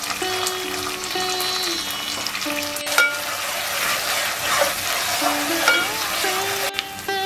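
Masala paste and shallots sizzling in hot oil in an aluminium pot while a metal spoon stirs them, with a sharp knock of the spoon against the pot about three seconds in.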